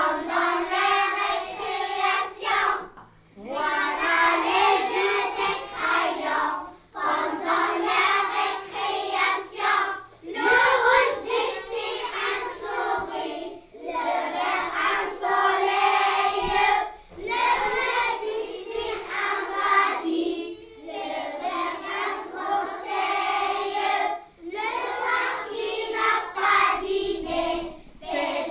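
Soundtrack of high voices singing together in phrases, with short breaks every few seconds.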